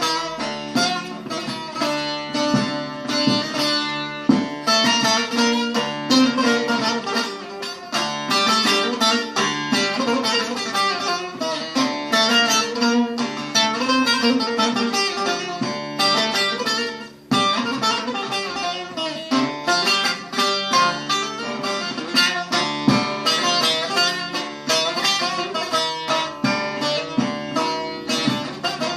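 Instrumental break of a Turkish song: plucked string instruments playing a fast, busy run of notes, with a short drop in the playing about seventeen seconds in.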